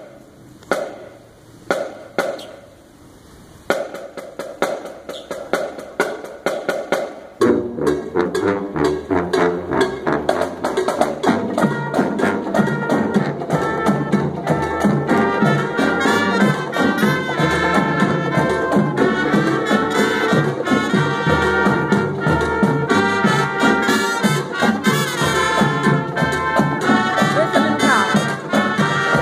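Marching band of brass and drums. It opens with a few sharp percussion strikes and drums alone, then the full brass section, sousaphones included, comes in loudly about seven seconds in and plays on.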